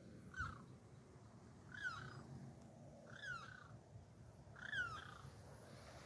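An animal calling four times, each call short and falling in pitch, about a second and a half apart.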